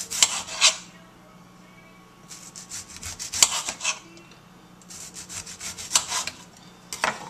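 Kitchen knife sawing through a ripe tomato with quick back-and-forth strokes, in four bursts of about a second each, the last one short.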